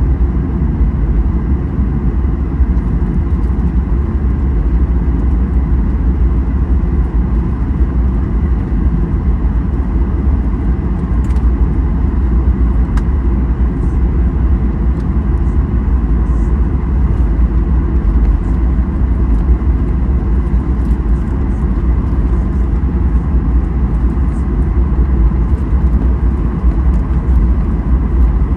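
Steady, loud low rumble of Boeing 737-800 cabin noise, with a few faint ticks.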